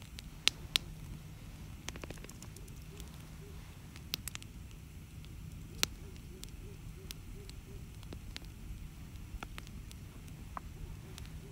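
Wood campfire burning and crackling, with scattered sharp pops of burning logs; the loudest are a pair about half a second in and single pops around four and six seconds in.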